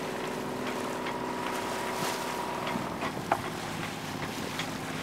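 Sailboat under way: a steady engine hum over the rush of wind and water, the hum changing a little about three seconds in, with a few light knocks.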